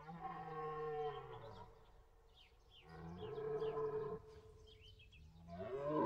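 Red deer stag giving its rutting roar: three long, deep, moaning calls, the third starting near the end. Small birds chirp faintly between the calls.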